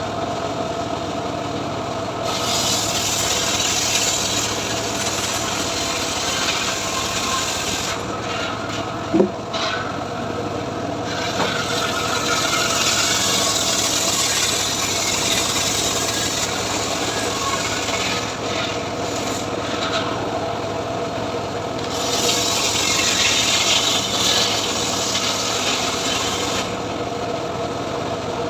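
Engine-driven homemade sawmill (gergaji srekel) sawing mahogany: the engine runs steadily while the rasp of the blade cutting through the wood swells for several seconds at a time and eases between passes. A single sharp knock sounds about nine seconds in.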